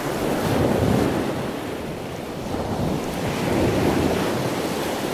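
Surf washing onto a sandy beach, with wind buffeting the microphone; the noise swells twice.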